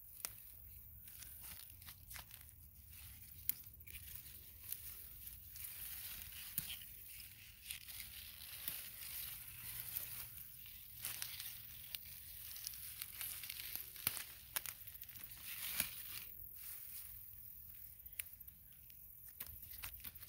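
Leaves and vines rustling and crinkling as garden plants are handled close to the microphone, with scattered sharp clicks and snaps.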